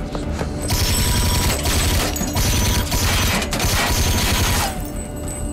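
Rapid automatic gunfire from a police drone's gun, firing in about three long bursts that start about a second in and stop shortly before the end.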